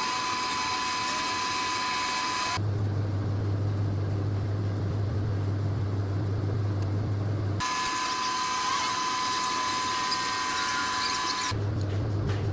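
Lathe machining in a workshop: a steady high whine with a hiss over it, cut abruptly twice into a low steady motor hum and back again.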